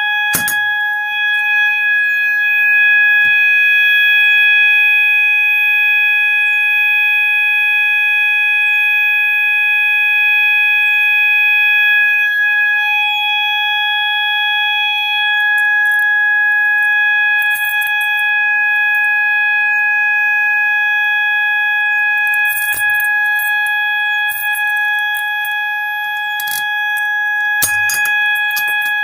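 System Sensor MASS fire alarm sounder-strobe sounding a steady, loud 800 Hz continuous tone, set off by pulling the fire alarm pull station. A faint high chirp repeats about every second or so, and a few clicks and rattles come in the second half.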